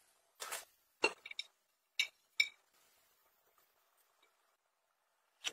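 A dessert fork and a ceramic plate clinking: a short scrape, then a quick run of light taps and two bright clinks. After that it goes quiet until one more click right at the end.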